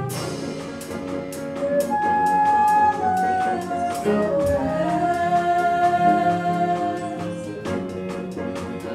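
Live school band playing: piano chords under a held flute melody, with guitars and a drum kit keeping time with steady ticks.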